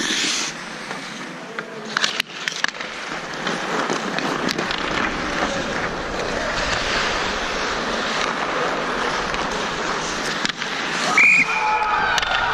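Ice hockey skates scraping and carving on the ice, with sharp clacks of sticks and puck about two seconds in and again near four and a half seconds. A brief high tone sounds near the end.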